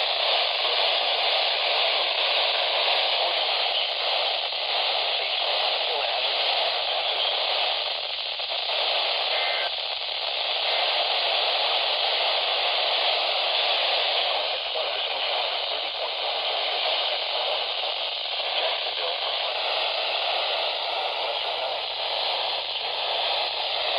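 Weather-band radio receiver hissing with static on a weak, distant station, a faint broadcast voice barely showing through the noise.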